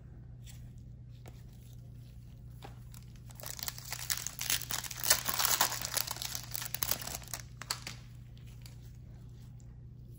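Shiny foil wrapper of a Topps Chrome trading card pack torn open and crinkled by hand, a burst of crackling from about three seconds in until about eight seconds in, with lighter rustles of the cards around it.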